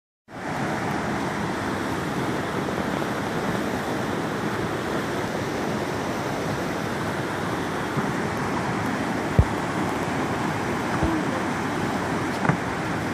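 Steady rushing roar of a creek running high through rapids. A few brief low knocks stand out over it in the second half.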